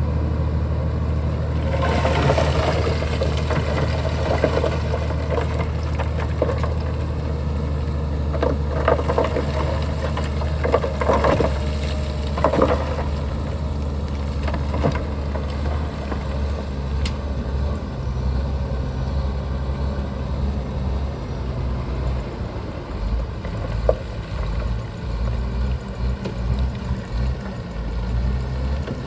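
Shantui bulldozer's diesel engine running steadily under work, with scattered metallic clanks and rattles in the first half and a sharp knock near the end.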